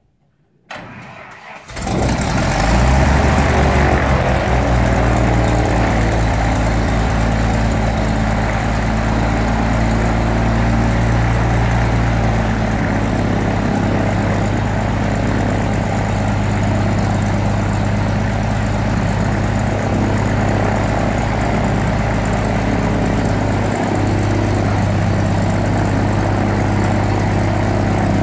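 Piper Cherokee's piston engine being started: the starter cranks for about a second, then the engine catches and runs. It settles into a steady idle with the propeller turning.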